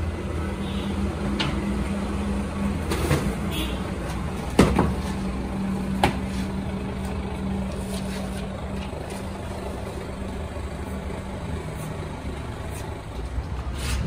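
Steady low hum with a few scattered knocks and clacks, the loudest just under five seconds in, as wooden blocks and a rubber inner tube are handled at a screw-clamp tube-vulcanizing press.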